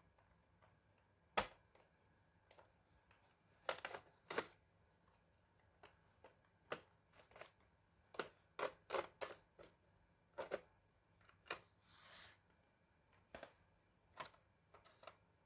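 Irregular clicks and light knocks from hands working on a laptop, taps of plastic and small parts, with a short scraping sound about twelve seconds in.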